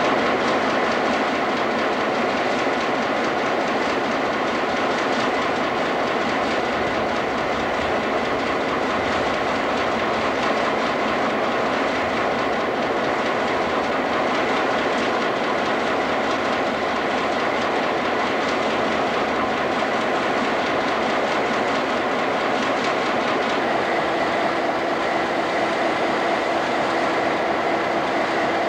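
Diesel-electric locomotives idling in a yard: a loud, steady engine drone with several steady tones through it, and a lower tone joining near the end.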